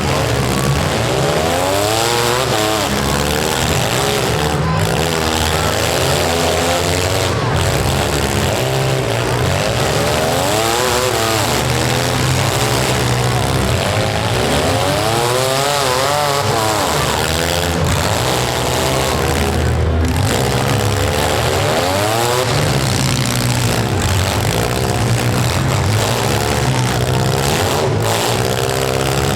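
Several compact demolition-derby cars' engines revving up and down over a steady loud din, with pitches rising and falling every few seconds as the cars accelerate and back off.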